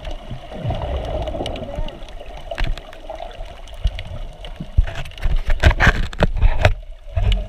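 Water sloshing and bubbling heard through an underwater camera housing, with a wavering gurgle and low rumble. In the second half comes a quick run of knocks and clicks.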